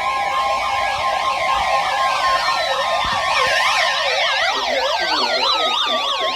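Overlapping electronic emergency alert tones: a steady two-tone alert attention signal that stops about four seconds in, under many rapidly warbling siren-like tones and a few slowly falling whistles.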